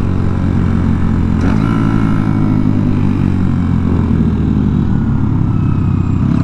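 Honda Monkey minibikes' small single-cylinder engines running steadily while riding, with a change in engine note about a second and a half in.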